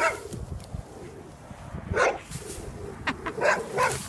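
A dog barking: a few short barks, the first about two seconds in and three more close together near the end.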